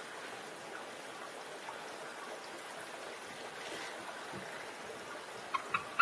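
Steady background hiss, then near the end three quick, sharp chirps from a bald eagle calling.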